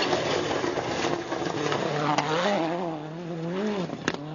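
A World Rally Car's turbocharged four-cylinder engine at speed on a gravel stage: a loud rush of engine and gravel noise as it passes, then the engine note rises and falls again and again with the throttle, broken by two sharp cracks.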